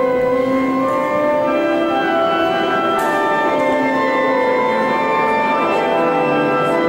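Church organ playing slow, sustained chords with held notes, the closing music of the Mass.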